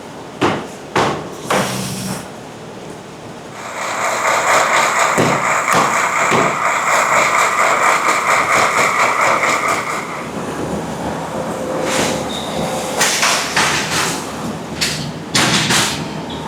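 Textile factory machinery running: a steady mechanical whir through the middle, with sharp clacks and knocks near the start and again toward the end.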